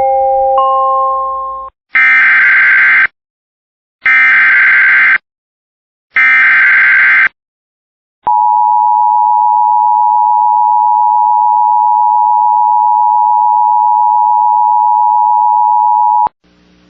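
The start of an Emergency Alert System weather warning on NOAA Weather Radio. A rising three-note chime ends first. Then come three short, screechy SAME header data bursts, about a second apart, followed by the steady single-pitch warning alarm tone for about eight seconds. These together signal that a severe thunderstorm warning is about to be read.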